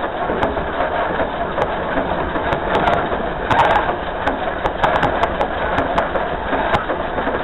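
Dollywood steam locomotive No. 192 running along the track, heard from its front pilot: a steady rumble of wheels on rail with scattered clicks and knocks.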